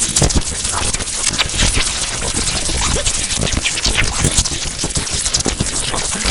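Electric sparks crackling: a dense, continuous run of sharp snaps and pops.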